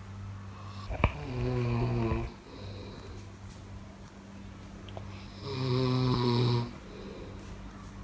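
A person snoring: two loud, pitched snores about four seconds apart, each lasting about a second, over a steady low hum. A sharp click comes just before the first snore.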